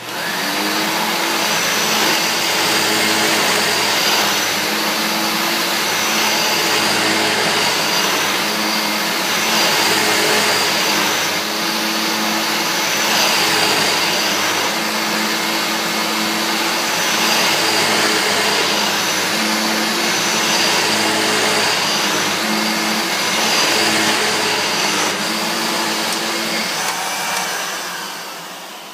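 Hoover U6634-900 vacuum cleaner switched on and running steadily while it cleans up a mess. Its level swells and dips slightly every couple of seconds, and it winds down near the end.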